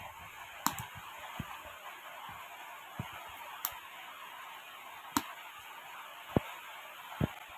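A wood fire in a clay stove crackling with a few sharp pops while a cob of green maize roasts on the embers, over a steady hiss. A couple of soft knocks near the end.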